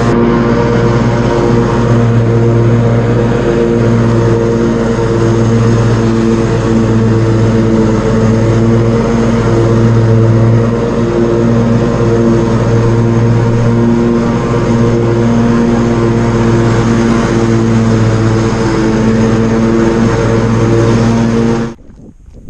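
Tractor engine running steadily while driving, a loud even drone with a slight pulsing in its low hum; it cuts off abruptly near the end.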